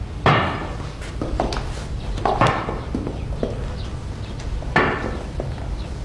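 A series of sharp knocks, the loudest about every two and a half seconds with fainter ones in between, each with a short ringing tail.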